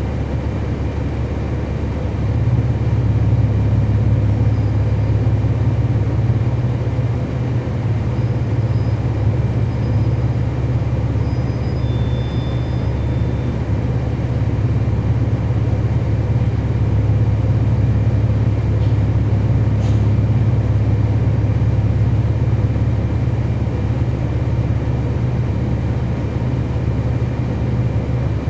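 Cabin sound of a 2012 NABI 416.15 transit bus under way, its Cummins ISL9 diesel and ZF Ecolife automatic transmission giving a steady low drone that grows louder about two and a half seconds in and then holds.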